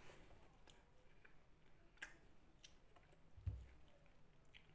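Near silence with faint, sparse mouth clicks from chewing a burger, and one soft low thump about three and a half seconds in.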